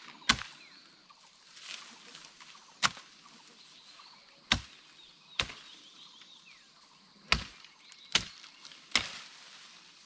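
A long hand blade chopping into leafy stems: seven sharp strokes, irregularly spaced about one to two and a half seconds apart.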